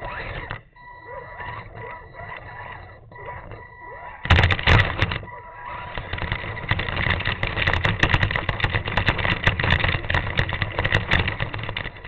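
Axial Deadbolt RC rock crawler driving over rough ground. About four seconds in comes a loud clatter of knocks as it drops down steps, then a steady crackling, rattling rumble of tyres and chassis over the ground.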